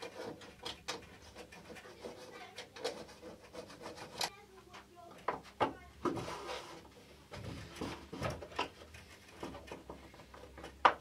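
Workbench handling sounds: scattered light clicks and knocks of a hand tool and model parts, with a stretch of rubbing about six seconds in and a sharp knock near the end.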